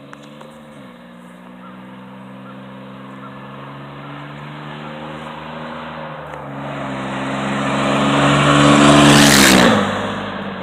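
Chevrolet Blazer running with its muffler and the back half of the exhaust removed, so loud, approaching and passing close by. The exhaust note dips briefly about a second in, builds steadily as the truck nears, and drops in pitch as it goes past near the end before fading away.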